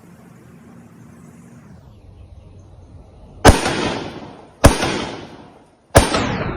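Three gunshots from a home-built firearm finished from an 80% receiver, about a second and a quarter apart, each trailing off in a echo lasting about a second. A faint steady hum runs under the first two seconds.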